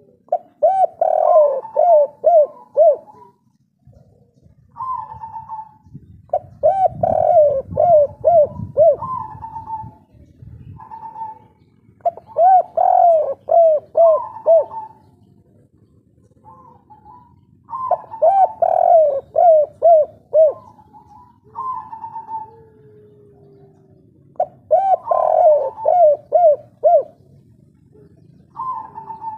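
Spotted dove (derkuku) cooing in repeated song phrases, each a couple of higher notes followed by a quick run of four or five lower coos. The phrases repeat about every five to six seconds.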